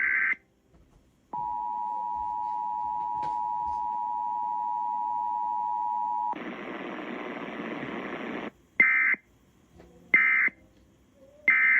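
Emergency Alert System weekly-test broadcast: the tail of a SAME header data burst, then the two-tone attention signal (853 and 960 Hz) held steady for about five seconds, a couple of seconds of hiss, and three short end-of-message data bursts marking the end of the alert.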